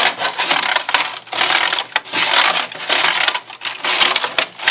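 The plastic keys of an old computer keyboard clattering as it is vigorously rubbed, in repeated scrubbing strokes full of small clicks.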